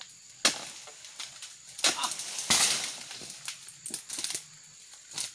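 Several sharp cracking strikes of a long pole-mounted blade cutting into the tough frond bases of an oil palm during pruning. About two and a half seconds in, one strike runs into a longer crashing rustle of palm fronds.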